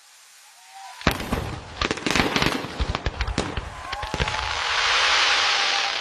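Aerial fireworks: quiet at first, then a sudden bang about a second in, followed by a run of rapid irregular cracks and pops, and near the end a dense hissing crackle that swells up.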